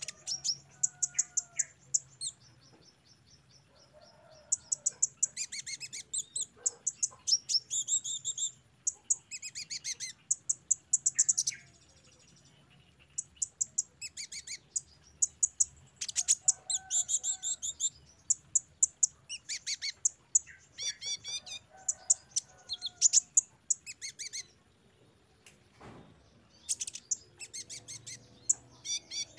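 Male Van Hasselt's sunbird (kolibri ninja) singing: rapid bursts of high, thin chirps and trills, broken by short pauses between phrases.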